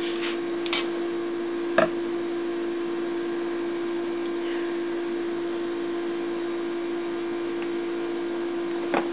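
Steady electrical hum at one low pitch, with three light clicks of a metal spoon against a plastic tub in the first two seconds.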